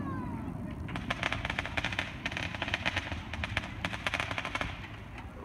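Fireworks: a falling whistle at the start, then about a second in a dense run of rapid small crackling pops lasting several seconds, like a crackling shell bursting overhead.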